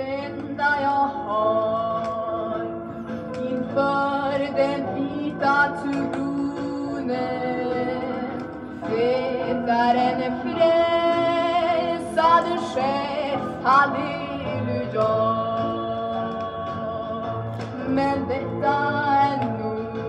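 Swedish gospel song from a 1960s single: sustained, wavering sung notes over a steady accompaniment.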